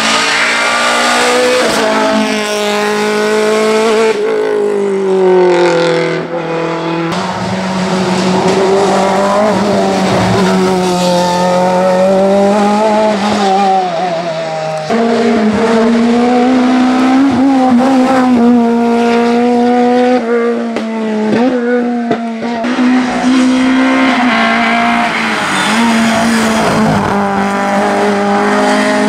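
Racing car engines accelerating hard uphill through bends, each revving up and dropping back on gear changes and lifts. The sound changes abruptly several times as one car gives way to the next.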